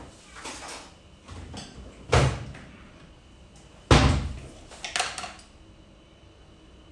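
Kitchen cupboard doors being shut: two loud thumps about two and four seconds in, with lighter knocks and clatter around them.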